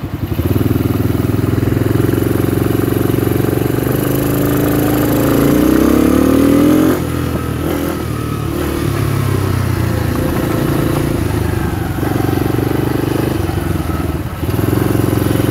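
The 2017 RPS 125cc Sporty ATV's four-stroke engine pulls away and runs under way. About four seconds in, the engine revs up with a rising pitch, then drops off sharply when the throttle is eased. After that the engine speed rises and falls as the quad is ridden.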